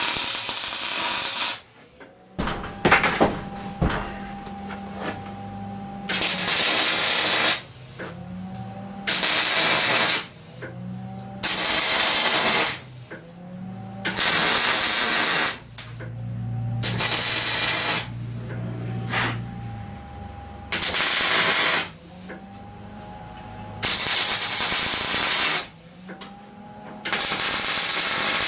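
MIG welder laying short weld beads on steel square tubing and plate: the arc crackles and hisses in about nine bursts of a second or so each, with short pauses between them.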